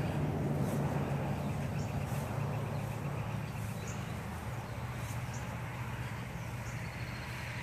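A steady low machine hum that drifts slightly quieter, with a brief run of faint rapid ticking about two to four seconds in and scattered faint high chirps above it.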